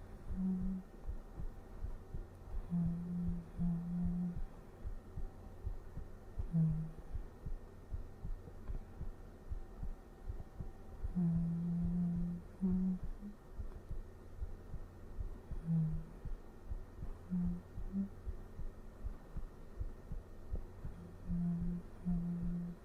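A man's heartbeat, a steady low thumping, with soft humming in short low held notes of a lullaby coming and going over it.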